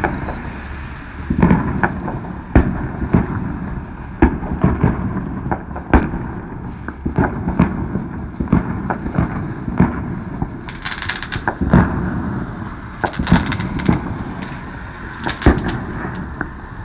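Fireworks and firecrackers going off around the neighbourhood: dozens of sharp bangs and pops at irregular intervals over a low rumble, with denser bursts of crackling about eleven and thirteen seconds in.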